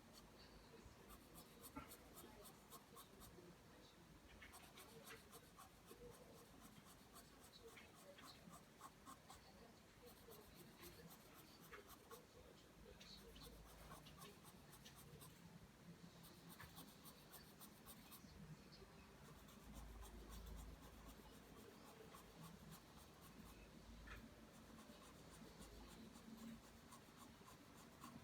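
Pencil drawing lines on paper: faint, rapid strokes of graphite coming in runs of a second or two, with short pauses between.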